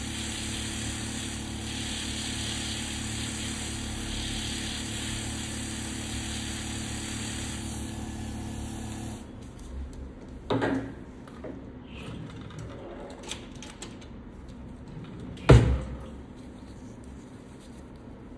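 Electric podiatry nail drill running steadily as it files down thickened fungal toenails, then switching off about nine seconds in. Two sharp thumps follow, the second one the loudest.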